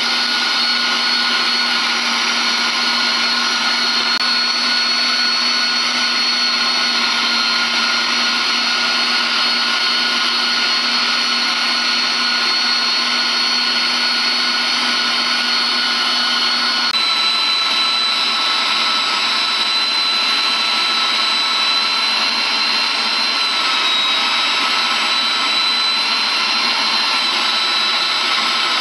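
Kenwood Pro 1400 electric meat grinder running steadily under load, mincing cod liver and shrimp, with a constant motor whine. The whine steps slightly lower in pitch a little over halfway through.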